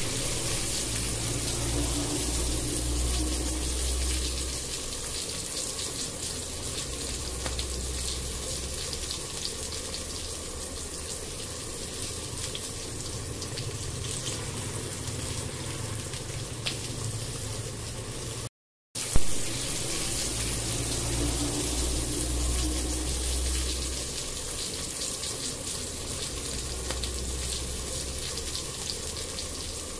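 Chopped onion frying in hot oil in a nonstick pan on an induction cooktop: a steady sizzling hiss with fine crackle over a low hum. The sound drops out briefly about two-thirds of the way through.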